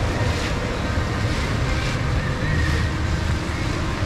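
Heavy rain falling steadily, with a low rumble underneath.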